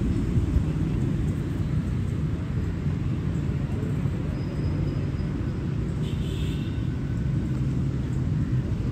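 Steady low rumble of city traffic with a faint engine hum, heard across an open park. A brief high chirp about six seconds in.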